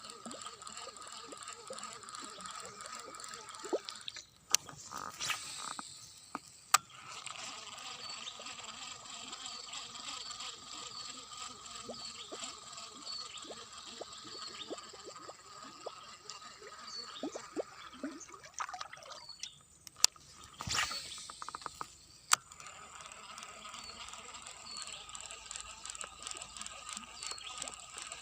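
Faint trickling and dripping water over a steady outdoor chorus of high calls, broken by a few sharp clicks: a pair about five seconds in and another pair about twenty seconds in.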